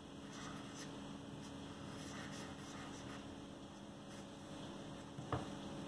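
Pen drawing short strokes on paper, a faint scratching, over a low steady hum. A single sharp tap comes about five seconds in.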